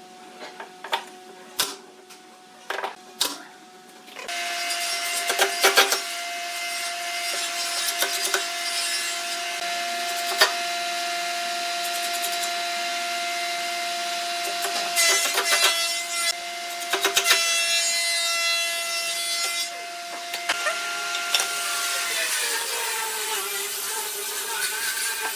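Nail gun firing nails into a pine frame: sharp single shots spaced a few seconds apart. A steady mechanical hum starts about four seconds in and drops in pitch near the end.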